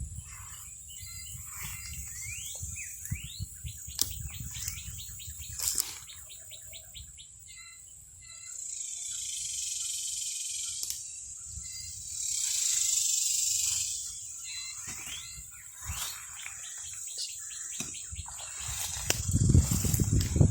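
Birds chirping and singing in short calls and quick rising notes, with a fast trill in the first few seconds, over a steady high-pitched insect hum. A louder low rumble comes near the end.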